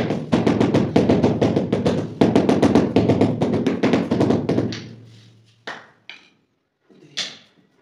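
Mallet tapping a marble floor tile down into its mortar bed, a quick run of several taps a second, then a few separate taps in the last three seconds.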